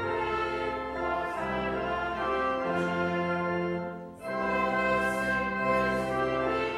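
An Easter hymn is played in slow, sustained chords, with a short break about four seconds in before the refrain begins.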